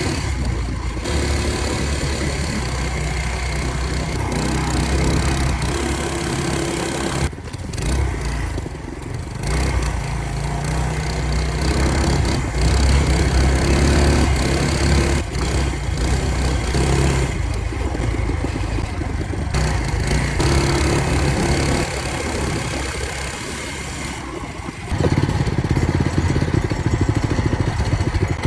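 Fatcat FC 212 mini bike's 212 cc single-cylinder four-stroke engine running under a rider, its revs rising and falling. It eases off about a quarter of the way in and picks up harder near the end.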